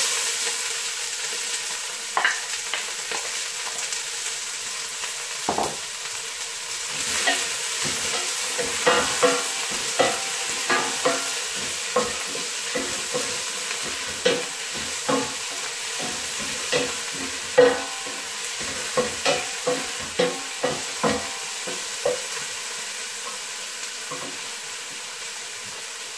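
Chopped red onion and spring onion sizzling steadily in hot coconut oil in a stainless steel pot. A wooden spoon stirs them, scraping and knocking against the pot many times.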